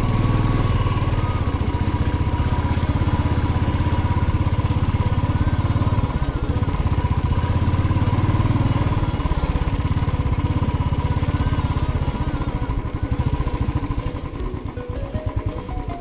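Motorcycle engine running steadily while riding, getting quieter and more uneven near the end as the throttle eases off.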